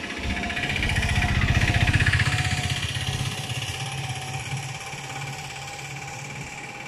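A motor engine running with a fast even beat, growing louder for about two seconds and then fading away, as a vehicle passes by.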